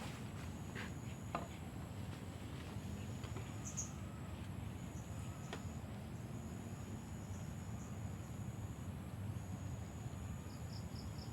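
Insects trilling in a thin, high, steady buzz that breaks off and starts again several times, over a low steady rumble. A few faint knocks, and three quick high chirps near the end.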